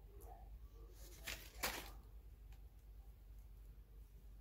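Mostly quiet room tone with a few faint, brief handling noises as a small object is turned over in the hands; the clearest comes about a second and a half in.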